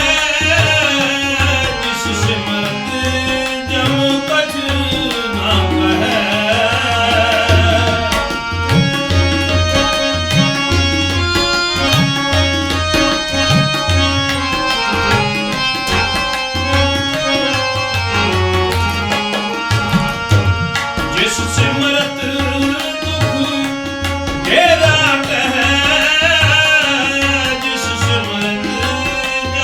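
Gurbani kirtan: tabla playing a steady rhythm under a held harmonium melody, with a wavering sung line rising over it at the start, around a quarter of the way in and near the end.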